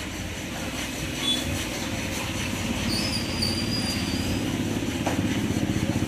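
A small engine idling steadily, a low rumble of rapid, even pulses that grows slowly louder.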